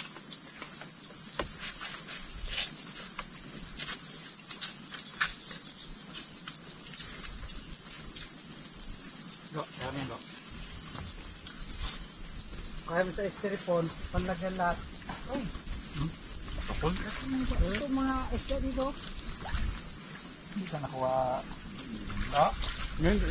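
Loud, steady insect chorus: a continuous high-pitched shrill that never lets up. A few light clicks come early on the way through, and low voices talk briefly past the middle.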